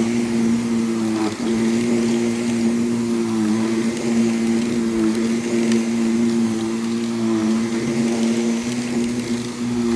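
Vacuum cleaner running steadily over a rug, pulling dry soil out of it ahead of wet cleaning. Its motor hum dips briefly in pitch a few times.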